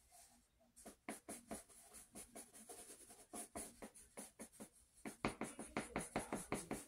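Pencil scratching on sketchbook paper in quick short strokes. The strokes come faster and louder about five seconds in.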